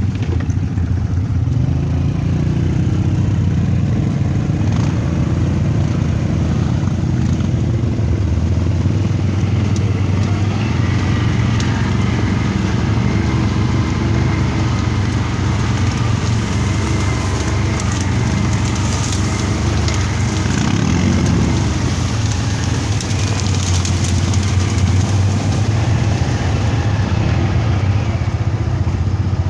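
ATV (quad bike) engine running steadily off-road, its revs rising and falling a little.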